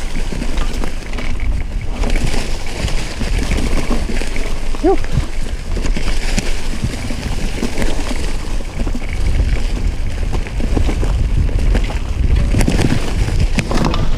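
Mountain bike running over a rough, stony trail: a steady rumble of wind on the microphone, with the clatter and knocks of tyres and bike over stones and a brief squeak about five seconds in.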